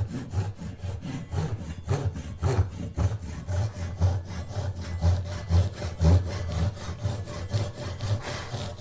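Japanese pull saw with a fine blade cutting a narrow slot into a hard-wood pen blank, in quick, even back-and-forth strokes.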